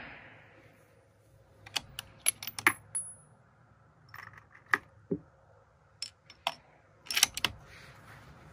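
Bolt of a Remington 700 bolt-action rifle being worked after a shot: a series of sharp metallic clicks and clacks in several short clusters as the bolt is lifted, drawn back and run home, with a brief high metallic ring about three seconds in.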